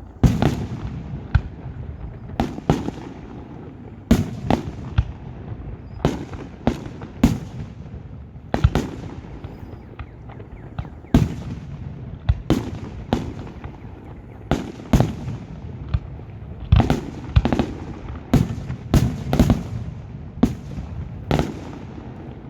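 Fireworks display: aerial shells bursting one after another, often in quick pairs, each bang followed by a brief rumbling echo.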